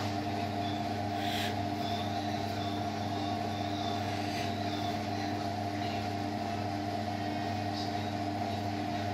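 A steady machine hum with several held tones at an even level, with a brief faint rustle about a second and a half in.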